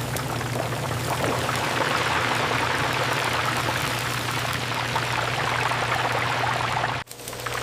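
Steady splashing, pouring liquid over a low machine hum, cut off abruptly about seven seconds in.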